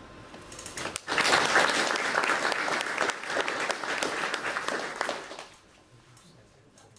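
Audience applauding. The clapping starts about a second in and dies away after about five seconds.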